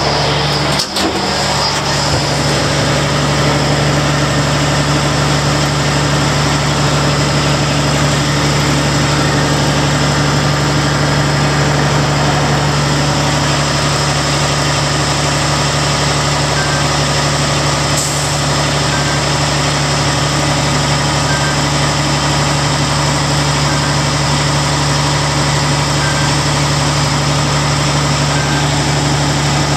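Caterpillar C18 twin-turbo inline-six diesel power unit running steadily, with a brief knock about a second in.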